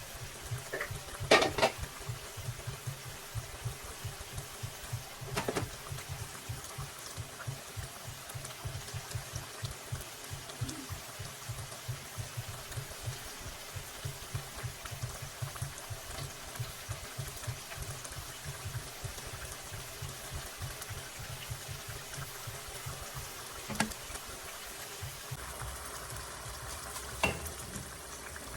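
Food cooking in a pan: a steady bubbling and sizzling crackle, with a few sharper knocks of a utensil or lid.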